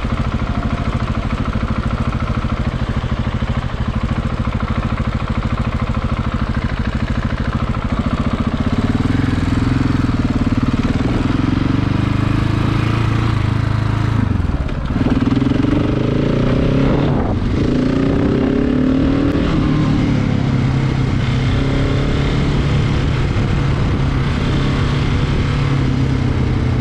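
KTM 690 single-cylinder motorcycle engine ticking over while stopped, then pulling away and accelerating. Its pitch rises and drops through two gear changes about halfway through, then it runs steadily at road speed.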